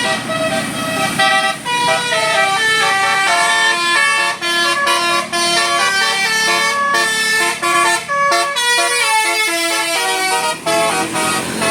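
Indonesian bus 'telolet basuri' musical horn playing a fast melody, its tones stepping from note to note several times a second with short breaks between phrases.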